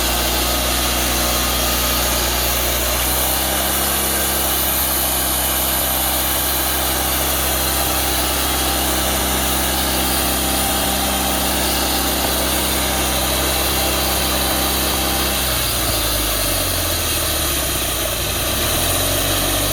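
Woodmizer LT40 sawmill's engine running steadily. Its pitch shifts about three seconds in, then wavers and drops for a few seconds near the end.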